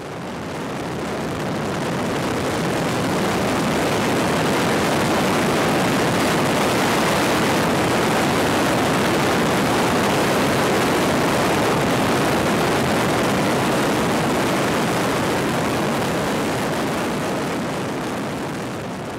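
A steady rushing noise with no pitch or beat, like wind or a jet's roar. It swells up over the first few seconds and fades away near the end.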